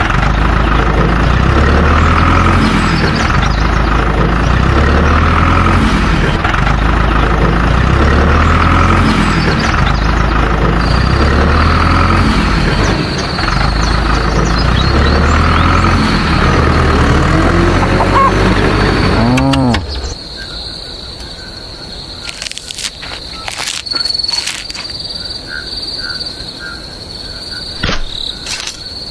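Background music with a heavy, repeating bass line for about twenty seconds, ending in a sweeping effect. Then a steady high-pitched insect chirring, like crickets, with a few clicks.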